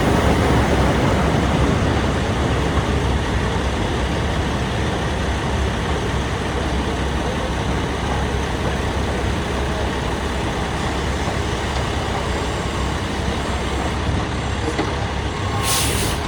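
Heavy diesel trucks and construction machinery running steadily in a continuous low rumble, slightly louder at the start. A short burst of air hissing comes near the end.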